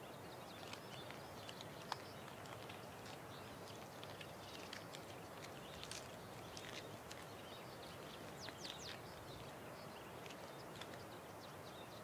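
Faint, irregular crunching clicks of a scorpion chewing an armored cricket, over a low steady hiss, with one sharper click about two seconds in.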